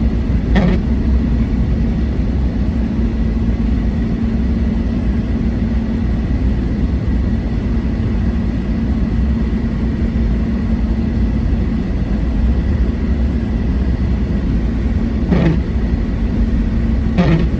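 Car driving at a steady pace: continuous engine and road rumble with a steady low hum. A few short sweeping sounds come about half a second in and again twice near the end.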